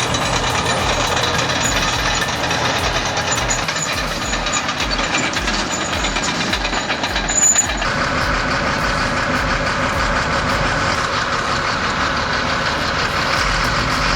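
Heavy bulldozer working, its diesel engine running steadily under a rapid metallic clatter. The sound changes abruptly about eight seconds in.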